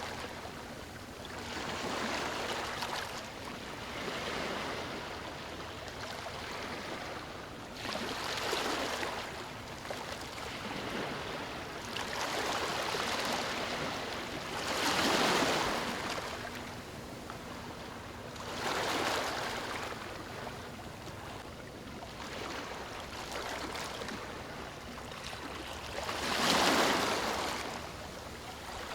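Ocean surf breaking on a beach: a steady rushing hiss that swells and fades as each wave comes in. Four louder breakers stand out, the strongest near the middle and near the end.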